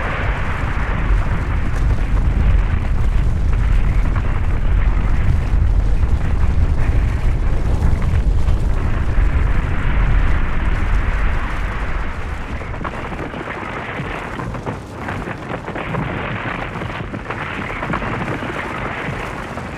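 Avalanche sound effect: a continuous deep rumble with a rushing hiss above it, heaviest through the first half and easing down a little after about twelve seconds.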